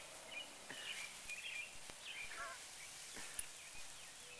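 Small birds chirping in short, scattered calls over a steady faint hiss of water spraying from a garden hose.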